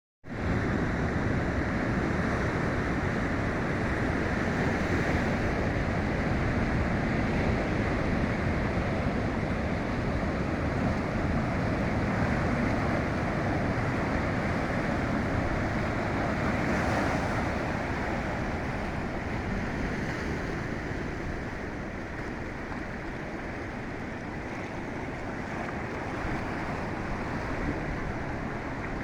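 Ocean surf breaking and washing onto a beach: a continuous rush of water that swells a few seconds in and again near the middle, then eases somewhat.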